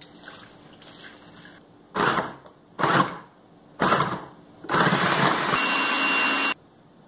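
Coconut water trickling faintly from a young coconut into a food processor, then the food processor pulsed three times in short bursts and run continuously for about two seconds, blending frozen strawberries and bananas with the coconut water; a thin high whine joins in partway through the run before the motor cuts off suddenly.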